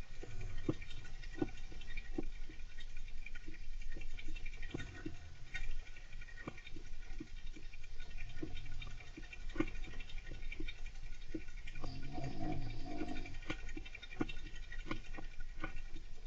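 Golden hamster scrabbling and scratching about its cage, making many irregular light clicks and taps.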